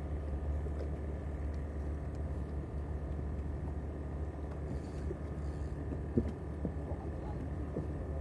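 Boat engine running with a steady low drone.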